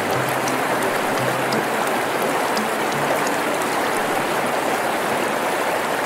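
River water flowing steadily: a continuous, even rush of water.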